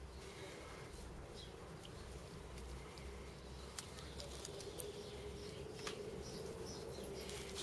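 Quiet outdoor background: a low rumble and a faint steady hum or buzz that grows a little stronger in the second half, with a few small sharp clicks and brief high chirps.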